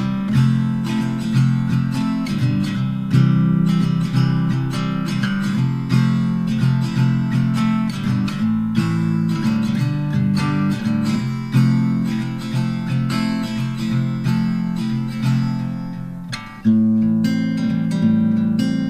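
Background music: strummed acoustic guitar playing chords at a steady pace, dipping briefly and coming back in strongly near the end.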